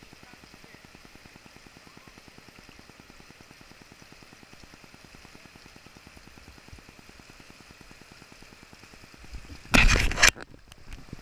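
A steady, faint rush of flowing river water. About ten seconds in there is a loud, brief burst of noise, strongest at the low end.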